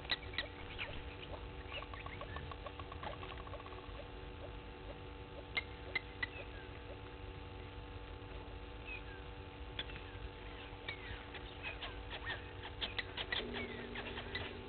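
Bush ambience of scattered short bird chirps and quick whistled sweeps, with a rapid even trill about two to four seconds in and a few sharp clicks, over a steady low hum. About a second before the end a steady motor whine starts as the remote camera zooms and pans.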